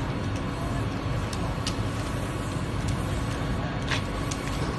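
Steady low rumble of street traffic, with a few short sharp clicks scattered through it.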